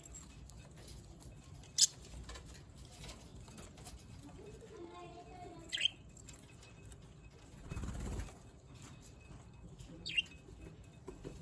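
Pet parrots giving three short, sharp chirps a few seconds apart, with a brief flutter of wings about two-thirds of the way through.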